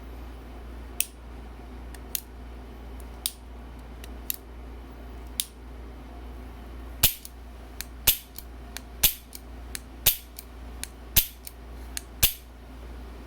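Antique Dresse-Laloux Belgian bulldog revolver's action being worked by hand: a series of sharp metallic clicks about one a second, fainter at first and louder from about seven seconds in, with smaller clicks between the loud ones.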